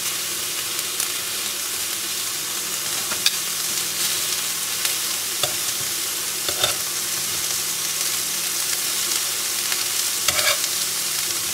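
Shrimp sizzling steadily in a hot ridged grill pan as they sear. A few separate clicks of metal tongs against the pan come through as the shrimp are turned over.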